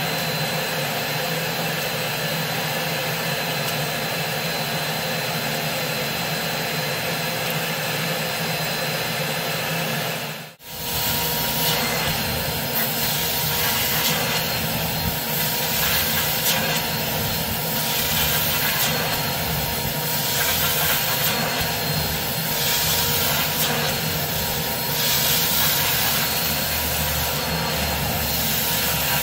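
Steady whine of a carpet-cleaning extraction machine running. About ten seconds in there is a short break, and then its extraction wand is pulled across a rug, the high hiss of spray and suction swelling and fading with each stroke.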